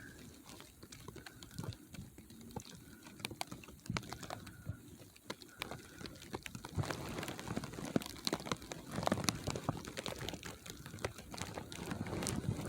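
Light, irregular crunching and crackling of snow underfoot, faint at first and louder and denser about two-thirds in.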